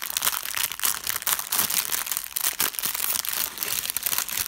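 Metallic-foil gift bag crinkling and crackling steadily as hands work its ribbon-tied top open: a continuous run of quick, sharp crackles.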